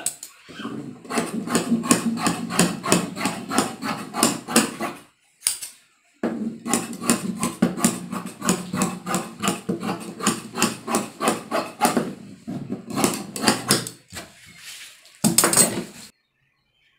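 Tailor's scissors cutting through cotton dress fabric on a table, a steady run of snips about four a second, broken by a pause about five seconds in and ending with a short final run near the end.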